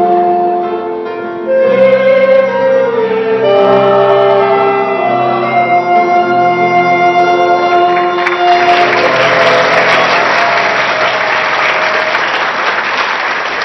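A church choir with accompaniment sings the last phrases of a hymn, holding long final notes. About eight seconds in, the audience breaks into applause.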